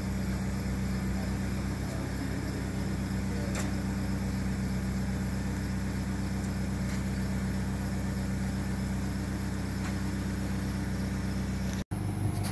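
Toyota HiAce Super GL van's engine idling, a low steady hum that does not change. The sound drops out for an instant near the end.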